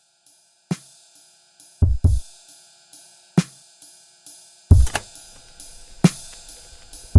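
Background music with a drum kit: kick drum, snare and hi-hat beats over sustained tones, getting fuller about five seconds in.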